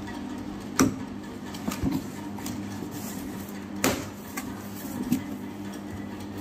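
Cardboard box being opened and handled by hand, its flaps pulled back, with a few sharp knocks: the two loudest come about a second in and near four seconds.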